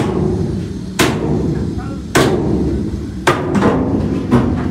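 Sharp hammer-like blows inside a steel shipping container: about six strikes, most roughly a second apart and two in quick succession near the end, each ringing briefly off the container walls.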